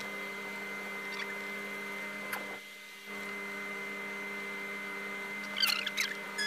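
Steady mechanical hum with several fixed pitches, as of an idling car's engine or blower heard inside the cabin, with a brief dip about two and a half seconds in. Near the end, a few short, high, wavering squeaky chirps cut in.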